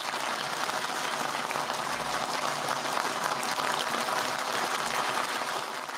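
Recorded crowd applause, steady, fading out near the end.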